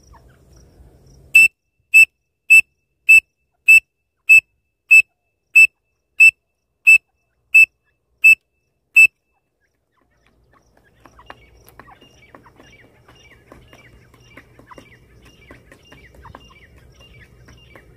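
Pen-cap whistle blown as a partridge call in thirteen short, high-pitched blasts at one pitch, evenly spaced and slowing slightly toward the end, to draw answering calls from wild grey francolins. After a short pause, faint scattered chirps and ticks follow.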